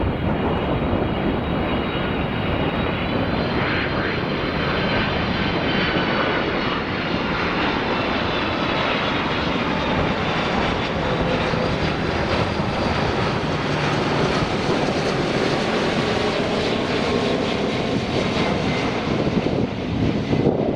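Four-engined Boeing 747-400F jetliner on its landing, its engines giving a loud, steady roar with a faint high whine that drifts slightly in pitch.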